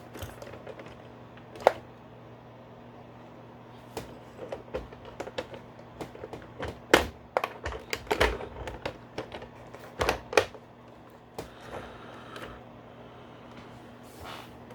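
Hard plastic parts of a G.I. Joe BUGG toy vehicle clicking and knocking as pieces are handled and snapped into place, in irregular bursts of small clicks, busiest in the middle. A faint steady low hum sits underneath.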